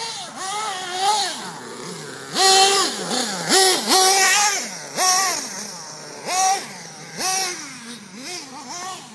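Small nitro glow-fuel engine of a radio-controlled truggy, revved hard and backed off over and over as it is driven. It makes a high, buzzing note that repeatedly rises and falls sharply, loudest through the middle of the stretch.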